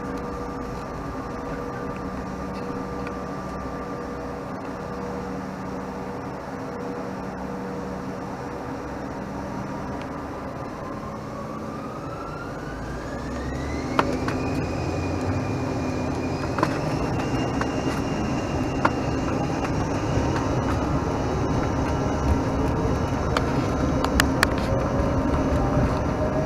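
Engines of a Bombardier CRJ-700 regional jet heard from inside the cabin, holding a steady whine and hum, then spooling up about halfway through with a whine that rises in pitch as takeoff power is set. The cabin noise grows louder, with a few sharp knocks and rattles and a lower tone that keeps rising slowly as the jet accelerates for takeoff.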